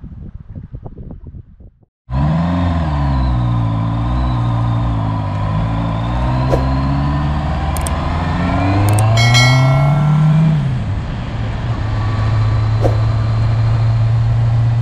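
Wind buffeting the microphone, cut off about two seconds in. Then a motorcycle engine runs under way, its pitch rising and falling with the throttle, climbing near ten seconds in and then holding steady. A few sharp clicks and a short ringing chime come about eight to nine seconds in.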